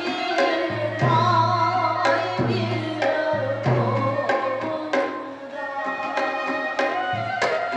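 Manipuri traditional dance music: a two-headed hand drum plays sharp slaps and deep booming strokes about once a second under a sung, wavering melody.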